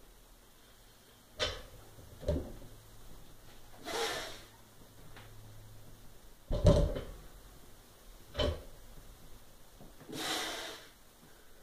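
Loaded barbell knocking and thudding on the floor during deadlift reps, the heaviest thud about six and a half seconds in, with two heavy exhales from the lifter between the knocks.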